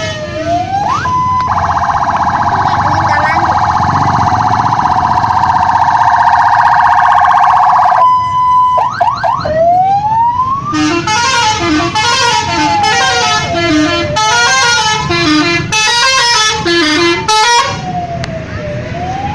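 A bus's 'telolet' multi-tone musical horn: first a long held chord for about six seconds, then, after a pause, a quick run of short stepping notes played as a tune for about seven seconds. A siren wails up and down through it.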